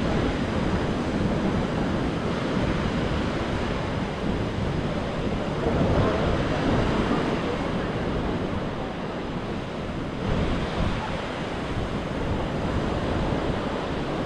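Sea surf washing onto a sand beach, with wind rumbling on the microphone. The wash swells louder about six seconds in and again a little after ten seconds.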